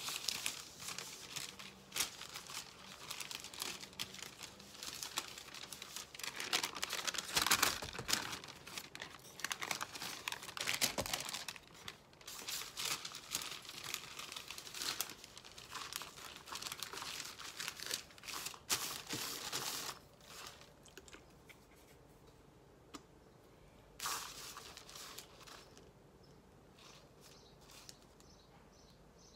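Crinkling and rustling of a crumpled sheet being handled for monoprinting, in irregular bursts that thin out about two-thirds of the way through, with one last burst near the end.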